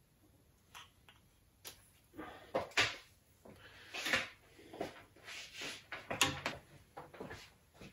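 Hands handling plastic antenna parts and tools on a wooden worktop: irregular rustling, scraping and knocking from about two seconds in, with a few sharp clicks.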